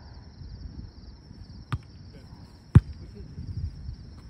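A volleyball struck twice by hand, two sharp smacks about a second apart, the second louder: the serve and the receiving pass. Under it runs a steady high chirring of crickets and a low wind rumble.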